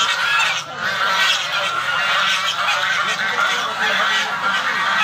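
A large flock of domestic geese honking continuously, many calls overlapping.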